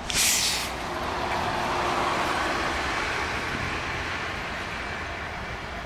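Double-decker city bus: a short sharp burst of air hiss, then its passing noise swelling and slowly fading.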